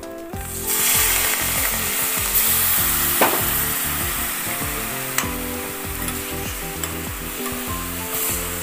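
Milk poured into a hot, oiled kadhai sizzling hard as it hits the pan, the sizzle setting in within the first second and slowly easing as the milk bubbles. A metal spatula taps the pan a couple of times.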